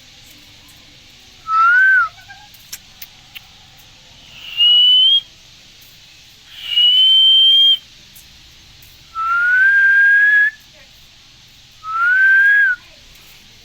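An Indian green parrot whistling: five clear whistles of about a second each, spaced a couple of seconds apart, most rising in pitch, with a few faint clicks after the first.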